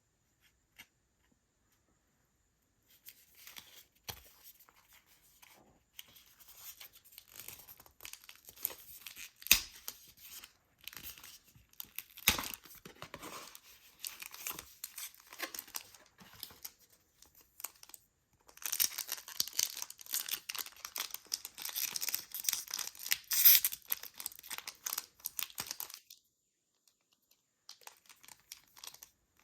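Pokémon card packaging wrapper being torn and crinkled open, in close-up crackling stretches broken by short pauses, with a few sharper snaps. The busiest, densest crinkling comes in the second half.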